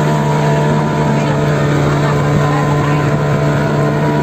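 Motorboat engine running steadily at a constant speed, heard from on board as a continuous drone.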